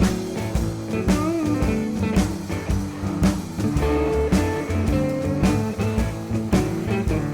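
Instrumental rock music with guitar and drums, a steady beat.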